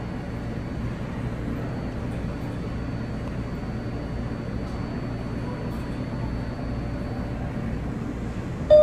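Steady low rumble of a New York subway train and station, with a faint thin high whine over it. A sudden loud pitched tone breaks in right at the end.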